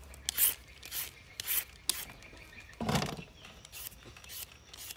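Julienne peeler scraping strips off a raw carrot, then a cucumber, in short rasping strokes about twice a second. A louder, duller stroke comes about three seconds in.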